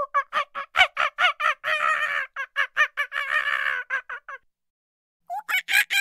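A rapid run of short, pitched animal calls, about five a second, broken by a pause of about a second some four seconds in before the calls start again.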